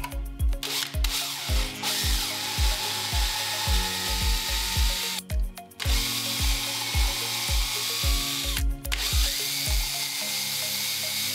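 Power drill with a small twist bit boring pilot holes into Douglas fir. It starts about a second in and stops briefly twice, with a steady motor whine while it runs.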